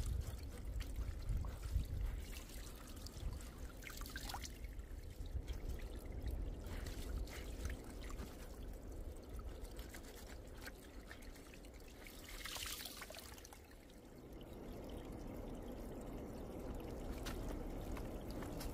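Water trickling and dripping over a low rumble, with scattered small clicks and two brief louder swells of noise.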